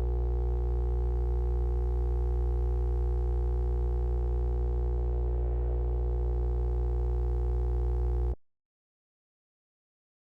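A steady, loud low buzzing tone with many overtones, like an electrical hum, held without change and then cutting off suddenly about eight seconds in, followed by dead silence.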